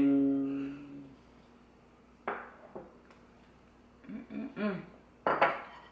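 A man's voice drawing out a low "ding" for about a second as two ceramic mugs touch in a toast. Then small taps, a murmured "mm", and a short loud sip from a mug near the end.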